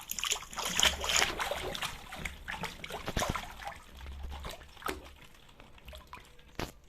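Water splashing and trickling, with many small clicks and knocks over it, busiest in the first few seconds and fading toward the end, with one sharper knock near the end.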